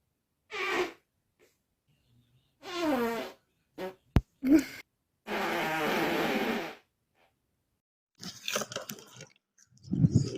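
A run of about six separate human farts with silence between them. Several are pitched and slide in pitch, one lasts about a second and a half just after the middle, and a crackly, sputtering one comes near the end. A single sharp click sounds a little after four seconds in.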